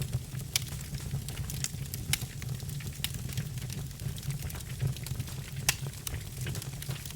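Birch logs crackling in a fireplace fire: irregular sharp pops and snaps, three louder ones about half a second, two seconds and nearly six seconds in, over a steady low rumble.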